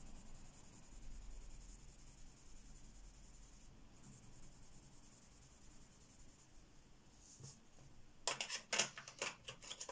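Giorgione coloured pencil shading on paper, a faint scratchy rubbing, followed near the end by a quick run of sharp clicks and knocks.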